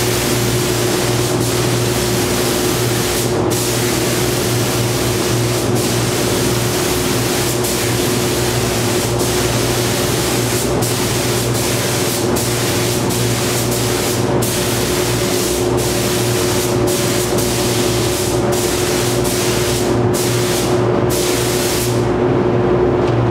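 Gravity-feed paint spray gun hissing as it sprays clear coat, broken by many brief gaps and stopping near the end. A steady low hum runs underneath.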